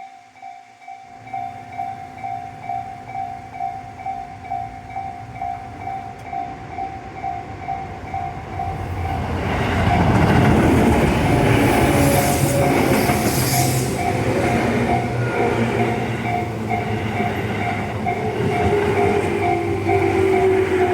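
Japanese level-crossing warning bell of the electronic Tobu 'sound C' type ringing steadily at about two strikes a second. About nine seconds in, a train passes with loud wheel and track noise while the bell keeps ringing, and near the end a whine from the train drops in pitch.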